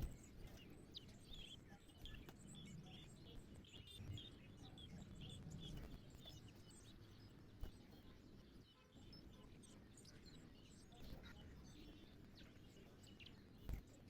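Faint chirping of small birds: many short, high chirps, thickest in the first half. A low background rumble runs underneath, with a couple of sharp clicks.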